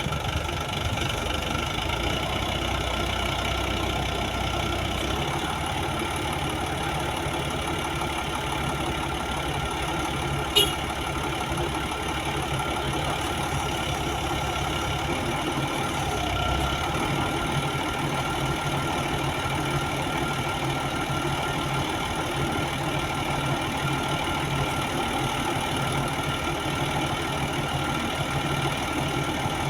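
Crane's engine running steadily, with a single short, sharp clank about ten seconds in.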